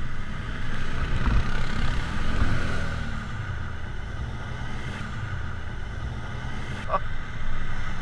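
Quad ATV and side-by-side engines running as the machines drive through a deep muddy puddle on a gravel trail, with water splashing and spraying.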